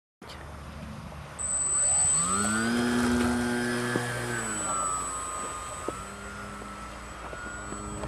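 A small RC flying wing's motor and propeller throttling up: the pitch rises about a second and a half in, holds high and loud, then eases down to a lower steady note about five seconds in as the plane flies on.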